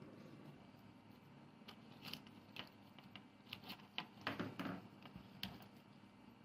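A series of faint, irregular clicks and light scrapes, like small hand work with tools or parts, clustered about a second and a half in until about five and a half seconds in.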